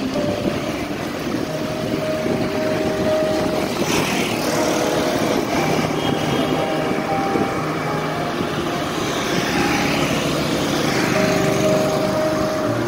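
Steady street traffic noise, with motor vehicles such as motorbikes running by.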